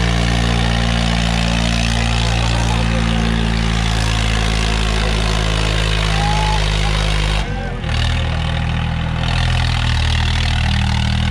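Swaraj 855 tractor's three-cylinder diesel engine running steadily and loud while the tractor spins on its rear wheels with its front lifted. About seven and a half seconds in, the engine note dips briefly, then settles at a different pitch.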